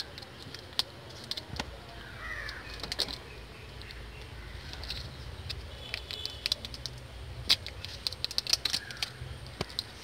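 Crinkling and crackling of the foil-and-paper wrapper as sticks of two-part epoxy putty are peeled open by hand, in many short sharp clicks.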